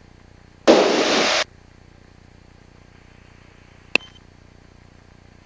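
Aircraft radio and intercom audio: a short burst of static hiss lasting under a second near the start, then a single sharp click about four seconds in, over a faint steady hiss.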